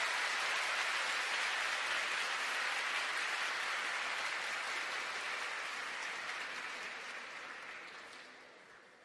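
Large audience applauding, the clapping fading away over the last couple of seconds.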